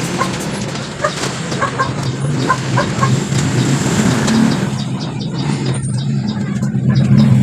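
A motor vehicle engine running with a steady low hum, growing louder near the end. Chickens cluck in short calls through the first few seconds.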